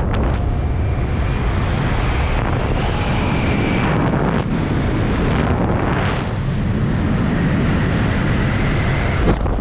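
Airflow rushing steadily over a helmet camera's microphone during a descent under an open parachute, with a faint thin high whistle at times.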